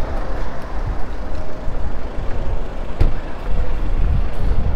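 Road traffic: motor vehicles running with a deep rumble that grows toward the end, and one sharp knock about three seconds in.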